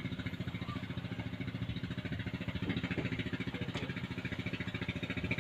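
Robin NB415 twin-piston two-stroke brush-cutter engine idling steadily with a fast, even pulse.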